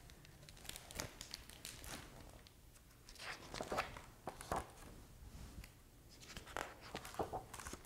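A hardcover picture book being opened and its pages handled: the cover and paper pages rustle in a few short bursts, with soft taps and crackles.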